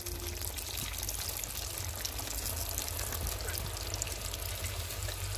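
Oil deep-frying potato sticks in an iron kadhai, sizzling and crackling steadily, with a steady low hum underneath.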